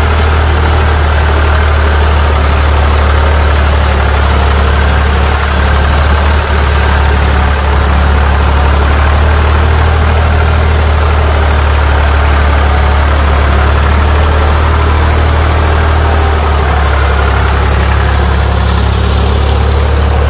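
Ford 4610 tractor's three-cylinder 3.3-litre diesel engine running steadily under load while pulling a disc plough through the soil, a steady deep engine note.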